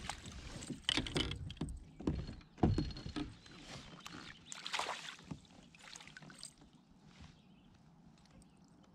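Water splashing and knocking against a kayak hull as a hooked smallmouth bass is scooped into a landing net alongside. A run of sharp splashes and knocks comes in the first half, then it goes quiet.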